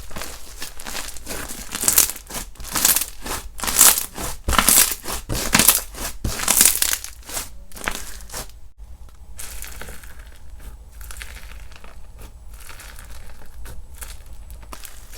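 Slime being squeezed and pressed by hand, a dense run of crinkly crackles and small pops. The crackling is louder for the first eight seconds, then goes on quieter and finer.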